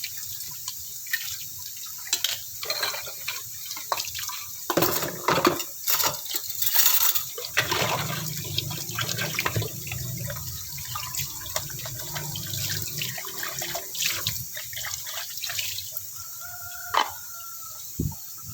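Dishes being washed by hand at a sink: water running and splashing, with scattered knocks and clinks of dishes and utensils. There is a brief squeak near the end.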